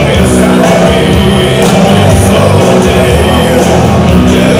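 Loud music with singing.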